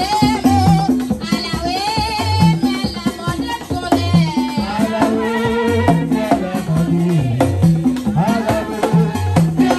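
Haitian Vodou ceremonial music: a voice singing a wavering melody over a repeating low drum pattern and a steadily shaken rattle.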